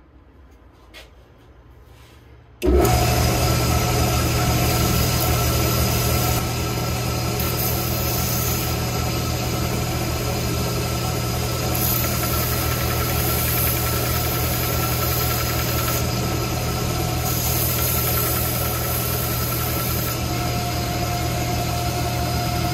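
Small bench belt sander running steadily, sanding the gouges out of a wooden tool handle held against the belt. Its motor noise and belt hiss start abruptly about three seconds in.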